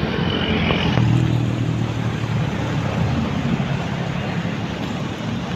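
Isuzu FVR bus's diesel engine running steadily with road noise, its low drone getting a little stronger about a second in.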